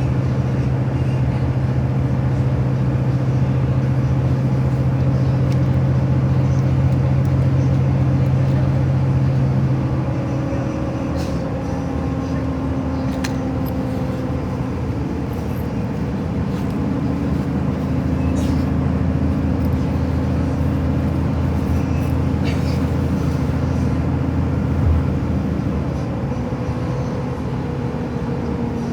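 A vehicle's engine and road noise as a steady drone; about ten seconds in its low tone drops and shifts, as with a change of speed or gear. A few faint clicks are heard along the way.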